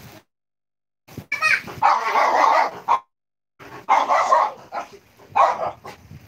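Loud, repeated animal calls in several bursts, broken by two short stretches where the audio drops out to dead silence.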